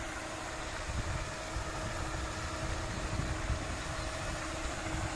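Floating pond aerator churning the water, a steady splashing rush with a faint steady hum, while wind rumbles unevenly on the microphone.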